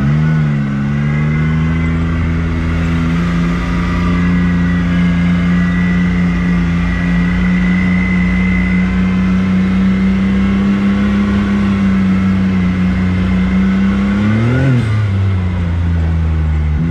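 Off-road vehicle engine running at a steady cruising speed on a gravel trail, with one short rev near the end.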